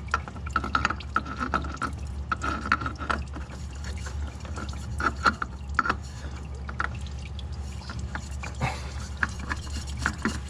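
Engine oil dripping and trickling into a drain pan, with irregular light taps and scrapes as a new oil filter is screwed on by hand, over a steady low hum.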